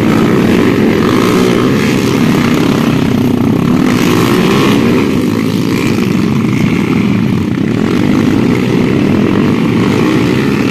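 Several small underbone motorcycles racing close by on a dirt track, their engines revving up and down and overlapping in one loud, continuous blend.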